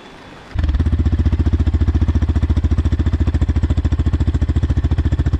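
Yamaha FZ-X's single-cylinder engine starting about half a second in and settling straight into a steady idle, a fast even pulse of about twelve beats a second.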